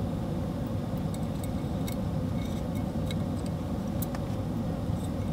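Scattered light metallic clicks of an Allen wrench and small screws on an aluminium extrusion frame, over a steady low rumble.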